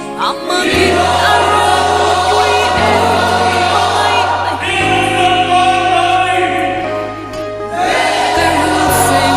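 Choir singing a gospel song over accompaniment with sustained bass notes that change chord every two or three seconds, with a short break between phrases a little past seven seconds.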